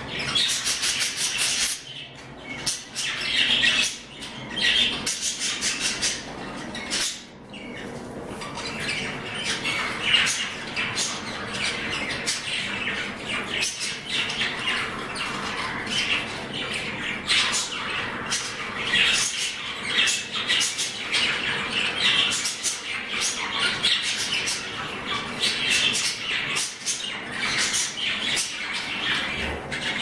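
Pet budgerigars chattering without a break, a dense run of short high calls.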